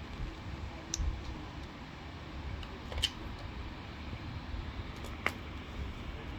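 Three sharp clicks, about two seconds apart, over a low rumble.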